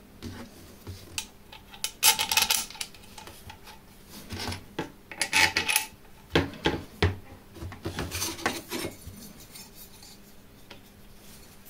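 Small steel parts handled on a workbench: bolts, nuts and a flat steel plate clinking and rattling against a steel bar, in several bursts of clatter that die down about nine seconds in.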